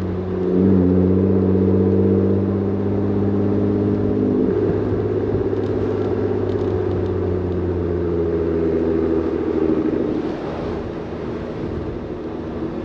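Exhaust of a 2018 Ford Raptor's twin-turbo 3.5-litre EcoBoost V6, fitted with an SPD Trombone resonator delete and a Borla ATAK muffler, giving a steady low note at light throttle while the truck rolls slowly. The note eases and gets quieter about ten seconds in.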